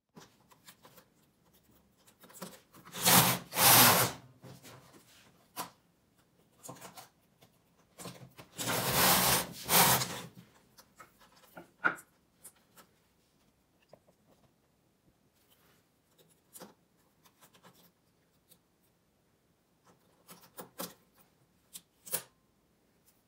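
Hand work on a 6 mm midgauge knitting machine: metal latch needles clicking and a transfer tool scraping against them as stitches are moved. Two longer rasping, rubbing sounds of about a second and a half each come about three seconds in and again about nine seconds in.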